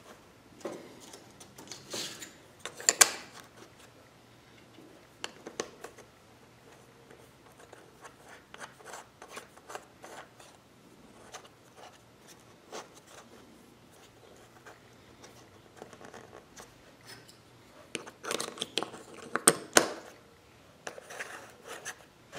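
Plastic welding helmet being handled and reassembled by hand: scattered light clicks, taps and rubbing of plastic parts as the threaded knob on the side of the shell is turned. There are a few louder clacks about three seconds in and a cluster near the end.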